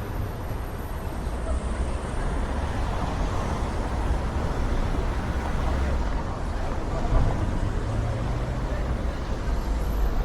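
Steady outdoor background noise with a low, fluctuating rumble and a hiss, picked up by the Insta360 X4 camera's microphones under a wind muff.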